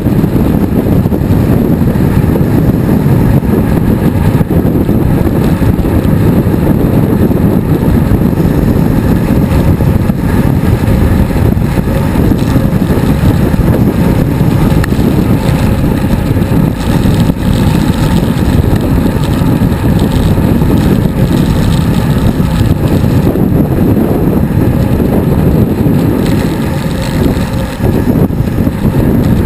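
Loud, steady wind buffeting the microphone of a GoPro action camera on a road bicycle moving at speed, easing slightly near the end.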